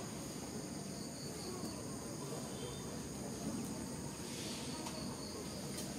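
Steady insect chorus, several high-pitched shrill tones held without a break, over a low steady background noise.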